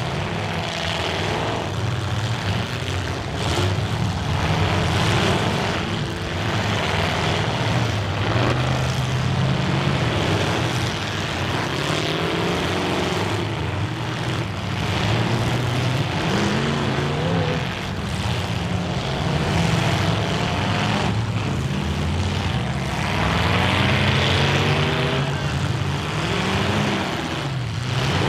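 Many full-size demolition-derby cars' engines running and revving together, with a few sharp crashes of cars ramming each other.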